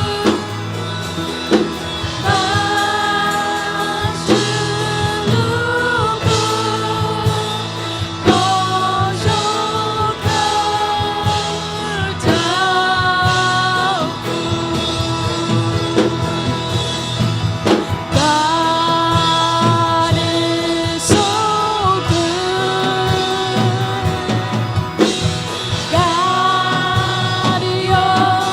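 Worship song: voices singing long held notes over a band with a steady drum beat.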